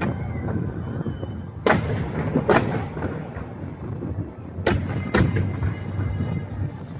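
Fireworks bursting: four sharp bangs in two pairs, about two seconds in and about five seconds in, each with a short trailing crackle. A steady low rumble runs underneath.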